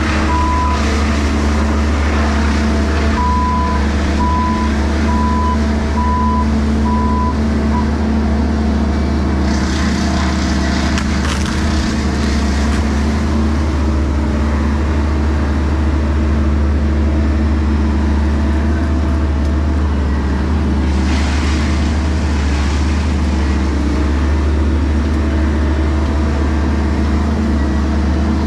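Heavy machinery engine running steadily, with a reversing alarm beeping at a regular pace for the first eight seconds or so. Two brief stretches of louder noise come about ten and twenty-one seconds in.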